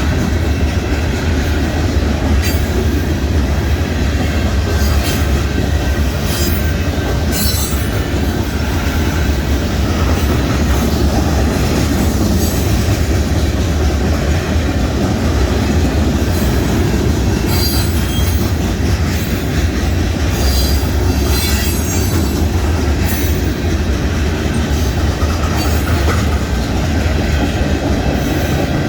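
Freight cars of a Union Pacific mixed freight train rolling past: a steady heavy rumble of steel wheels on rail, with short high wheel squeals breaking in several times.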